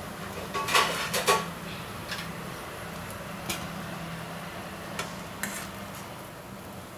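Flat steel spatula scraping and clinking against a stainless steel kadai while scooping out cooked sabudana khichdi. The loudest strokes come in a quick cluster about a second in, followed by a few lighter single knocks, over a steady low hum.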